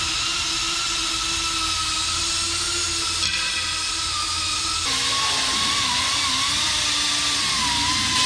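Air-powered die grinder whining steadily as it takes the burrs off a bellhousing. About five seconds in its pitch drops and wavers as it bears on the metal.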